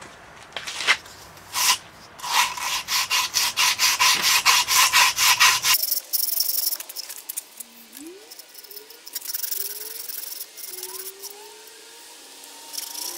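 A strip of abrasive cloth rubbed hard back and forth over a rough cast iron cylinder casting, about four strokes a second, cleaning up the as-cast surface. About halfway through it gives way to fainter scraping with a few short squeaks.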